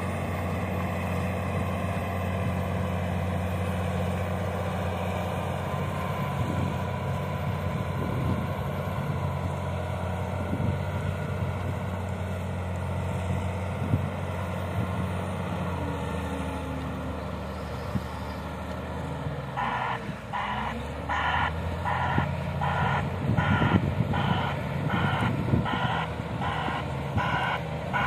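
Komatsu WA470-8 wheel loader's six-cylinder diesel engine running steadily under work. About two-thirds of the way in, its reversing alarm starts beeping at about two beeps a second: the loader is in reverse.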